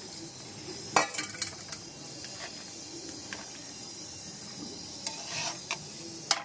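Metal spatula and steel bowl clinking and scraping against a steel kadai as fried paneer fritters are tipped into a simmering curry and stirred, over a steady sizzle. A quick run of sharp clinks comes about a second in, and a few more near the end.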